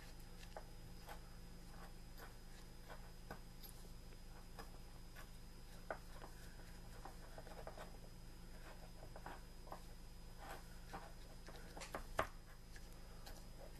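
Faint, irregular ticks and scrapes of a pin working in a small cup of match-head mixture, with one sharper click a little before the end, over a faint steady hum.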